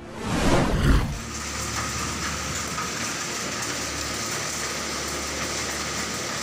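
A loud sweeping whoosh in the first second, then the steady, dense hiss and clatter of a hailstorm: hail and heavy rain pelting roofs and ground in strong wind.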